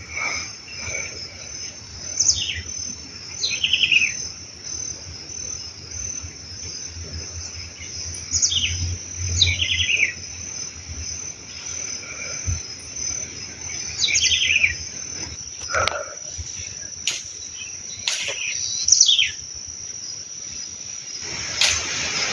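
Insects chirring steadily at a high pitch, while a bird gives short descending calls every few seconds, about six in all. A few sharp clicks come near the end.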